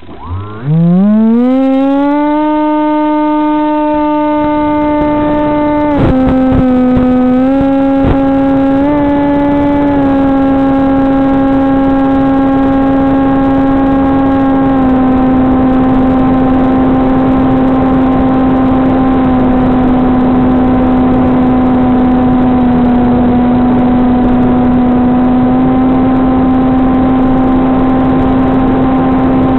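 Brushless outrunner motor (SunnySky 2212 2450KV) driving an APC 6x5.5 propeller, picked up by the aircraft's onboard microphone. It spools up with a fast rising whine as the wing is launched, then holds a steady high-throttle drone, stepping slightly in pitch as the throttle changes, over a hiss of rushing air.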